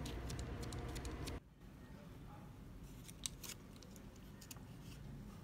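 A low outdoor background hum that drops away suddenly about a second and a half in, followed by a few light clicks and taps from fingers handling the sealed plastic lid of a milk tea cup. The sharpest click comes a little past halfway.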